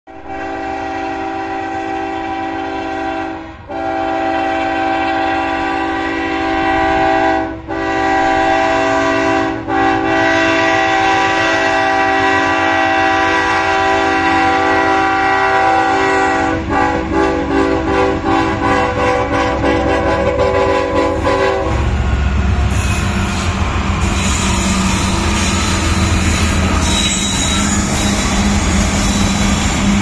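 BNSF diesel freight locomotive's multi-chime air horn sounding a chord in long blasts, with three brief breaks early on, then held as one long blast that cuts off about 22 seconds in. The locomotive then passes close by, with the diesel engine rumbling and the wheels clattering on the rails.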